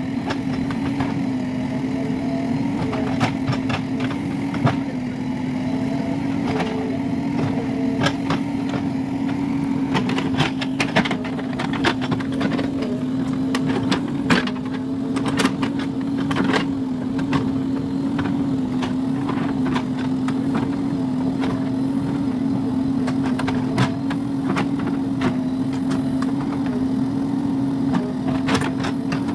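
JCB 3DX backhoe loader's diesel engine running steadily under working load as the backhoe digs. Frequent sharp knocks and scrapes come from the bucket working the earth, more of them from about ten seconds in.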